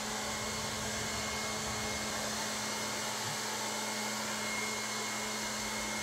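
Lefant M200 robot vacuum running: a steady whir of its suction fan with a low hum and a faint high whine.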